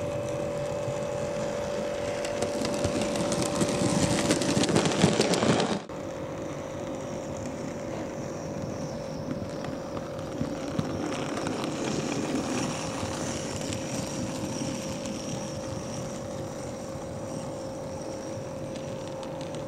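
OO-gauge model railway locomotives running on the layout: a steady motor hum with the rush of wheels on the rails. The rush swells to its loudest over the first six seconds and breaks off suddenly. After that a quieter run follows as a model GWR 'Dukedog' 4-4-0 approaches.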